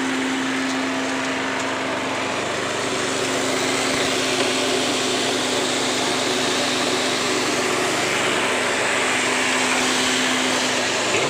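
Coffee huller running steadily while hulling dried coffee beans: a continuous mechanical whir with a steady hum.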